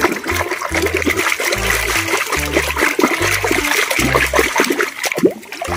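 A hand stirring and squelching through thick, foamy muddy water in a plastic tub, with sloshing and trickling.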